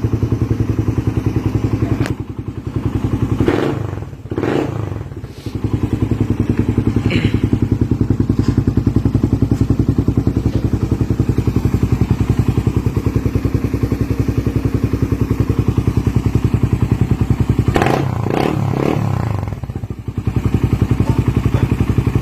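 Suzuki Raider 150 motorcycle engine idling through an aftermarket exhaust with a fast, even pulse, blipped up a few times near the start and again near the end, each rev rising and falling quickly back to idle.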